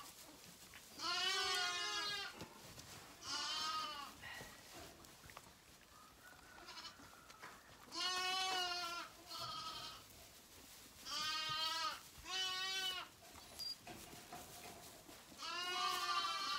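Zwartbles lambs bleating at bottle-feeding time: about seven wavering calls of roughly a second each, with soft rustling between them.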